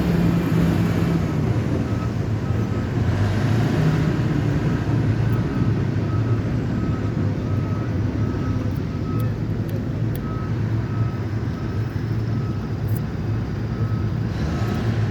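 Bulldozer's diesel engine running steadily, with a reversing alarm giving short, evenly spaced high beeps through most of it.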